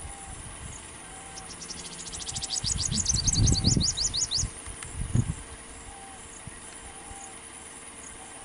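A bird sings a fast run of high, rising notes for about three seconds, starting about a second in, speeding up and then slowing at the end. Under it a low rumble swells around the middle and briefly again a second later, and a faint low call repeats about once a second throughout.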